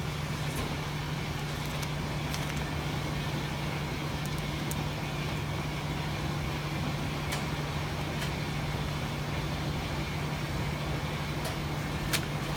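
Steady low machinery hum of laundromat machines over an even background noise, with a few faint light ticks.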